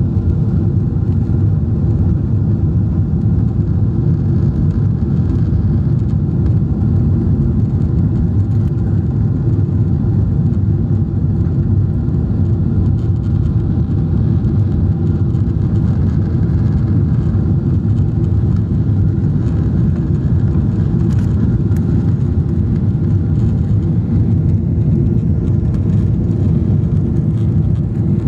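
Cabin noise inside a Boeing 777-200 climbing after takeoff: the jet engines and rushing air make a steady, low-pitched noise with no change in loudness.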